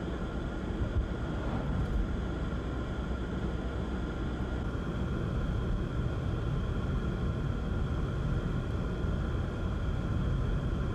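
Steady rumble of road traffic in blizzard conditions, with two faint steady high tones running through it.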